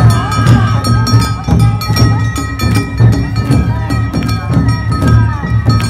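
Awa-odori festival band playing: taiko drums beating a steady rhythm and kane hand gongs clanging, with voices calling out over the music.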